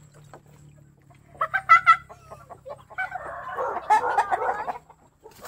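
Chickens clucking and squawking: a few short loud calls about a second and a half in, then a longer, busier stretch of calls from about three seconds in.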